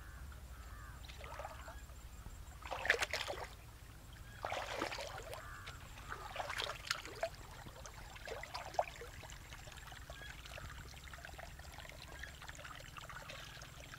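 Water trickling and splashing through a grass-and-brush weir in a shallow stream, in irregular bursts, the strongest about three and five seconds in. A faint steady low hum runs underneath.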